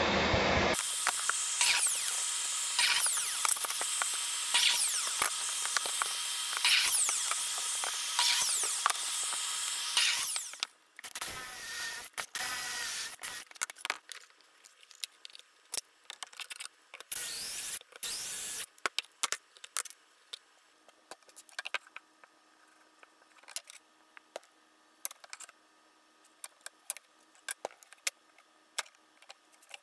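Biscuit joiner running with its vacuum dust extraction, surging about once a second as slots are cut, then stopping suddenly about ten seconds in. After that come scattered light clicks and knocks of wooden rails and biscuits being handled on the bench.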